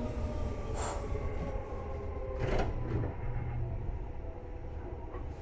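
Seibu 2000 series electric train running, heard aboard near its underfloor equipment: the motor and gear whine sinks in pitch and fades over a steady low rumble as the train slows. Two short hisses come about a second in and again about two and a half seconds in.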